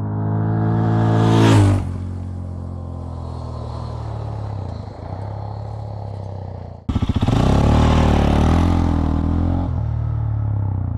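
SWM Silver Vase 440 motorcycle's single-cylinder engine running. It revs up briefly about a second and a half in and drops back to idle, then about seven seconds in turns suddenly louder and rougher for some three seconds before settling back to idle.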